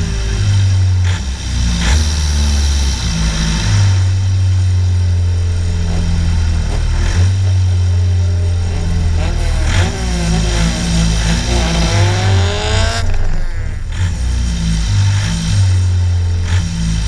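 Car engine running and revving, with a heavy low rumble throughout; from about halfway through it revs up again and again in quick rising sweeps.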